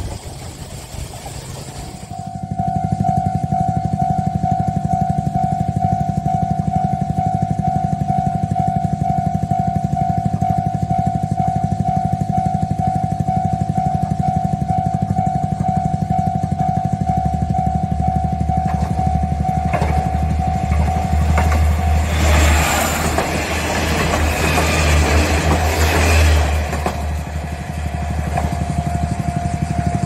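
Japanese railway level-crossing alarm ringing its quick, steady electronic bell, starting about two seconds in. A JR KiHa 47 diesel railcar passes over the crossing about two-thirds of the way through: its engine rumble and wheel noise briefly drown out the bell, which rings on after the train has passed.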